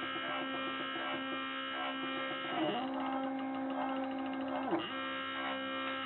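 A DIY wooden-frame GRBL CNC mini router running, a steady motor whine with several tones. Every two seconds or so the pitch dips sharply and comes straight back up.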